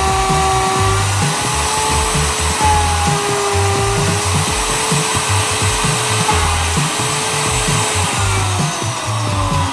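A power tool's electric motor running steadily on wood, under background music with a beat.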